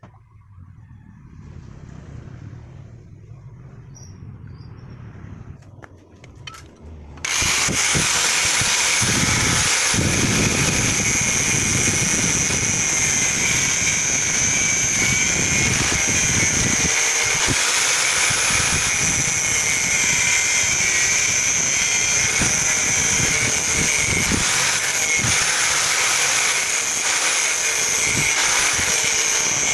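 Electric angle grinder grinding the end of a steel tube, throwing sparks. It comes in suddenly about a quarter of the way in, after a quieter low rumble, and then runs steadily with a high motor whine over the grinding noise.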